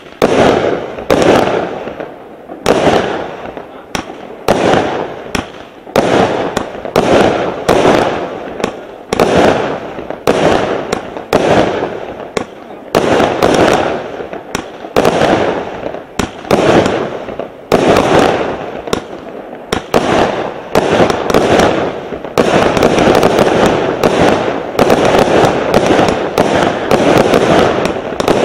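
A 50-shot consumer firework cake with 19 mm tubes firing shot after shot, each a sharp bang that tails off, about one to two a second. In the last quarter the shots come faster and run together into a near-continuous barrage.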